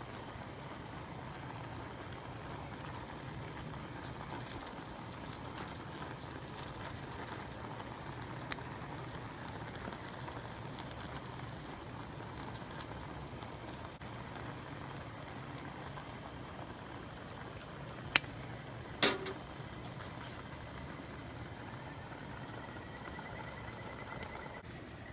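Sukiyaki simmering in a pan, a steady bubbling. Two sharp clicks less than a second apart come about three-quarters of the way through.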